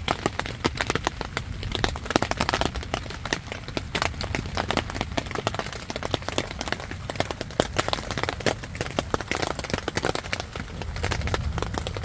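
Rain falling on a taut tent fly, heard from inside the tent: a dense, irregular run of sharp drop hits.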